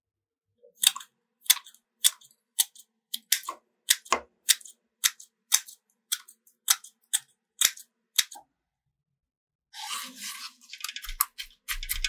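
A steady run of sharp snipping clicks, about two a second, for some seven seconds, then a crackling rustle that starts near the end.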